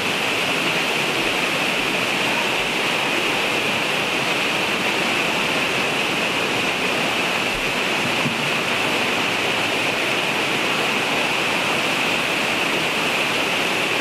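White water of the cave's stream rushing and cascading over rocks beside the walkway, in a steady, unbroken rush.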